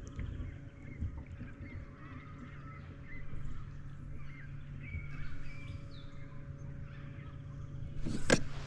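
Electric trolling motor humming steadily under scattered bird calls. A single sharp knock comes near the end.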